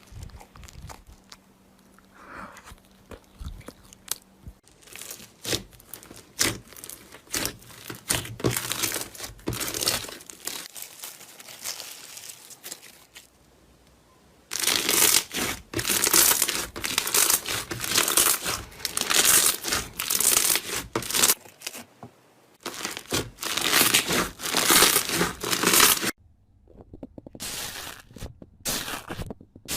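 Slime being squeezed and stretched by hand, giving dense runs of crackling and popping. It is quieter for the first few seconds, loudest through the middle and later part with short pauses, and thins to scattered clicks near the end.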